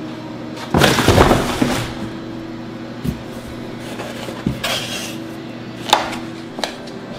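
Cardboard packaging around a boxed grill being handled and shifted: a long rustling scrape about a second in, then scattered knocks and rustles. Background music plays faintly underneath.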